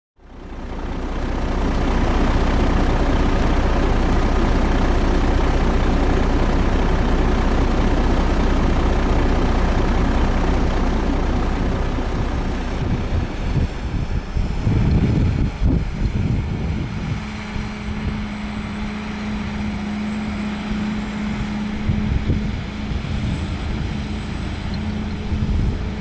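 Heavy diesel engines of a John Deere tractor and a silage dump truck running at a pile of chopped wheat silage, while the truck's raised box tips out its load. The sound fades in at the start, and a steady engine hum settles in about midway.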